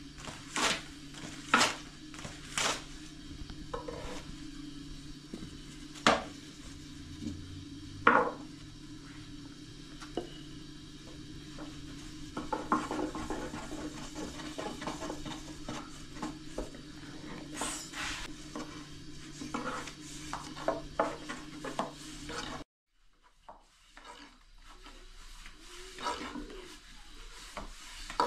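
Long thin wooden rolling pin knocking against a round wooden board as thin flatbread dough is tossed and flipped over it, then rolling and rubbing over the dough, over a steady low hum. The hum stops abruptly near the end, and quieter handling follows.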